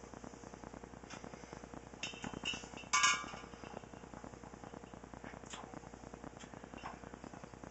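A few light clicks, then one sharp clink of glass that rings briefly about three seconds in: the empty one-gallon glass wine jug knocked at its neck as the siphon tube is fed in for racking wine. A faint crackle runs underneath.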